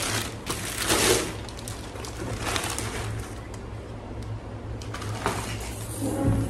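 Clear plastic packaging bag crinkling and rustling as a new aluminium pressure cooker is pulled out of it and out of its cardboard box, in several short bursts, loudest about a second in. A steady low hum runs underneath.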